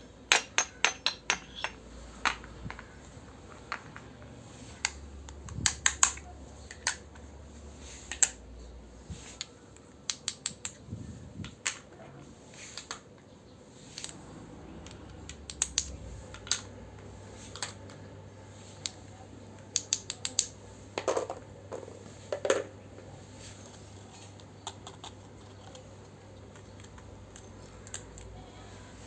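Miniature toy kitchen pieces clicking and clinking as they are handled and set in place, in quick clusters of sharp taps with pauses between.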